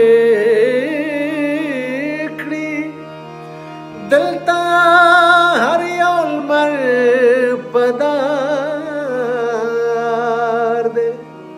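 A man sings a slow Pashto lament for a martyr in long, wavering held notes. He pauses briefly about three seconds in. A steady low drone runs beneath.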